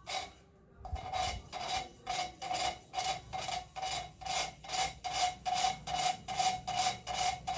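The big valve of a Bajaj Pulsar 125 BS6 cylinder head being lapped into its seat with grinding paste: twisted back and forth by a pipe on its stem, it grinds against the seat in rapid rasping strokes, about three a second, starting about a second in. The lapping cuts a fresh seat so the valve seals and holds compression.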